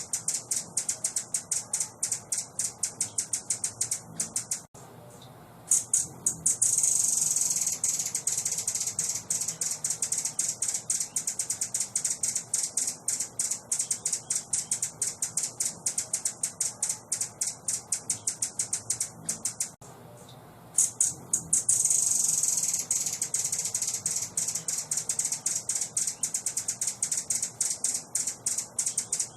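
A songbird's rapid, dry, high-pitched chattering call, a run of clicks several a second. It breaks off briefly twice, each time resuming as a denser buzzing trill.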